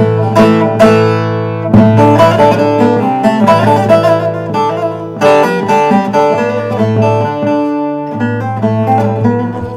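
Background music: plucked acoustic guitar notes over a held low note.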